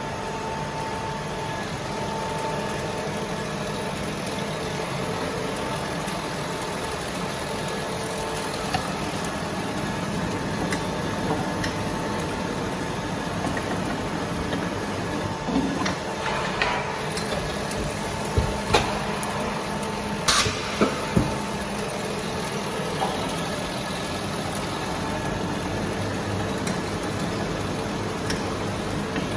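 Sealpac 610 automatic traysealer running: a steady machine hum with a faint whine, and several sharp mechanical clacks about halfway through.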